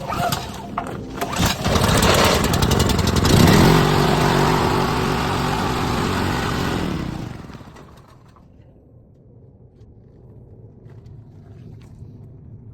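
Small gas engine of a pressure washer starting up and running for a few seconds, then shut off and spinning down about seven seconds in: the unit is run with the water disconnected to push the last water out of the pump before freezing weather.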